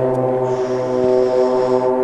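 Steady propeller drone of four Extra 300 aerobatic aircraft flying in formation, their piston engines and propellers making one even, multi-toned hum.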